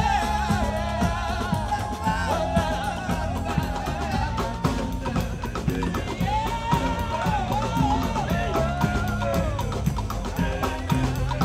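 New Orleans-style street marching band playing, with horn lines over a steady bass and drums keeping a regular beat.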